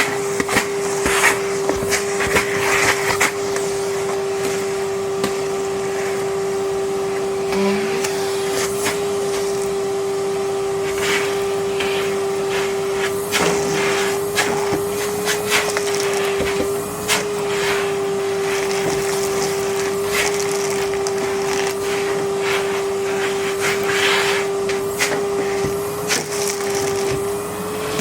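Numatic Henry Xtra vacuum cleaner running steadily with an even motor whine, and frequent short clicks and knocks over it throughout.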